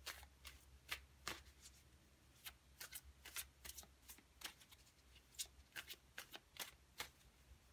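A tarot deck being shuffled by hand: a string of light, irregular clicks and snaps of cards.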